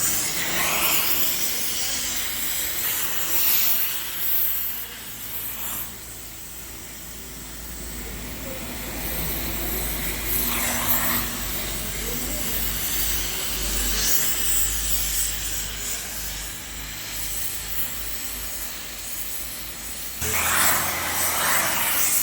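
Welding on a JCB 3DX backhoe loader's nose: hissing that comes and goes in stretches, over a steady low hum.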